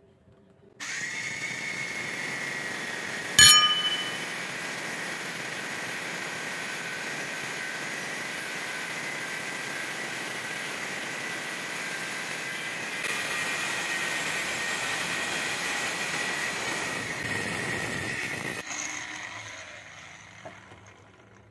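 Angle grinder with a cutting disc cutting into a square steel tube, a steady grinding noise with a high whine. A single sharp metallic clank about three and a half seconds in; the cut gets a little louder about 13 seconds in, then the grinder stops and winds down near the end.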